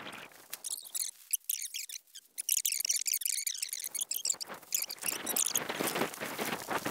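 Nylon fabric of a Green Elephant Utilitent pop-up privacy tent rustling and flapping as it springs open and is handled. It comes as a fast, high-pitched flurry of crinkles and squeaky chirps with almost no low sound.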